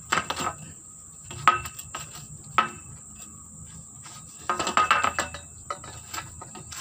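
Metal tube sections of an oil palm harvesting pole being twisted and pushed together to seat an inner twist-lock clamp: a couple of sharp metallic clicks, then a short run of rattling and scraping about two-thirds of the way through. A steady high insect drone sits underneath.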